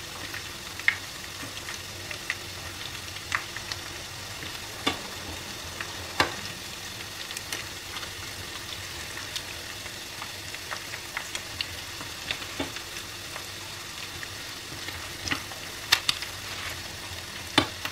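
Flour-and-egg-battered chicken pieces frying in hot oil in a pan, nearly golden brown: a steady sizzling hiss with scattered sharp pops and clicks as the pieces are turned with tongs.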